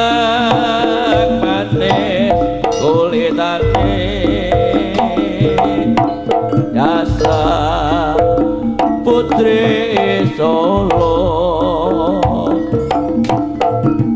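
Live Javanese gamelan-style accompaniment for a barongan dance. Hand-drum strokes and ringing metal tones keep a steady beat under a wavering lead melody that drops out and returns a few times.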